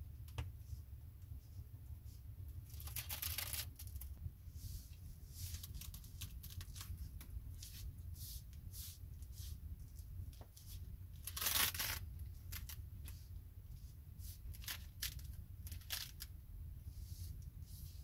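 Adhesive tape being pulled off its roll in many short rips and pressed along a wooden door post, with two longer pulls, one about three seconds in and a louder one about two-thirds through.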